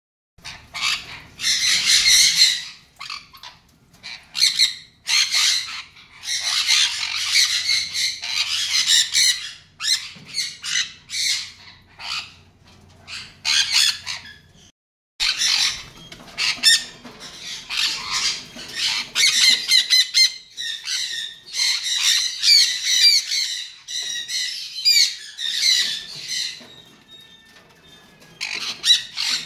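A flock of sun conures calling, harsh shrill calls repeated in overlapping bursts, broken by a brief silence about halfway.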